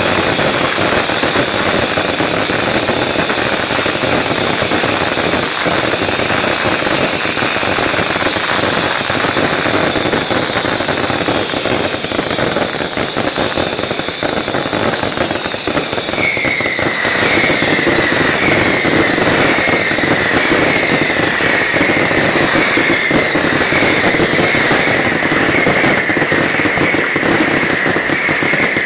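Dense fireworks barrage: a continuous crackle of bursting stars and bangs over a steady shrill whistle. About halfway through, a string of falling whistles starts, roughly one a second, while the first high whistle fades out.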